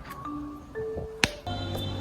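Background music of short pitched notes with snapping clicks; a steady low bass note comes in about three-quarters of the way through.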